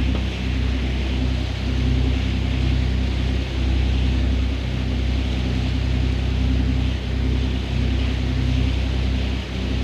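Fishing boat's engine running steadily at trolling speed, with the rush of water and wind over it.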